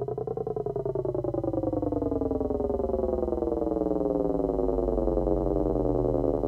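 Synthesizer tone pulsing rapidly over a steady low drone, its pitch rising briefly at the start and then sliding slowly downward.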